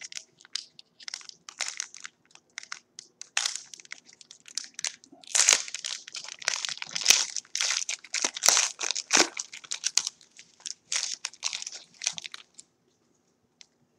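Foil wrapper of a Panini football card pack crinkling and crackling as it is torn open by hand, an irregular run of crackles, loudest in the middle, that stops about a second and a half before the end.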